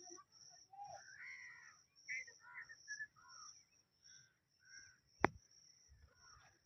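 Green parrot giving a string of short chirps and squawky calls, each bending up and down in pitch, over a steady high-pitched hum. A single sharp click comes about five seconds in.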